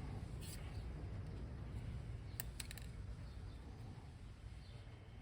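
A few light clicks from handling small tools and hard plastic parts, with a quick cluster of three about two and a half seconds in, over a low steady hum.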